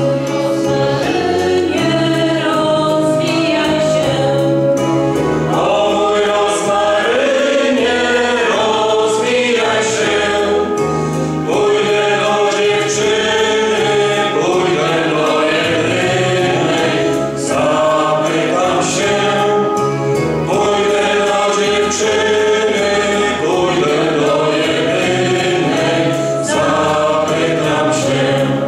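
Small choir singing.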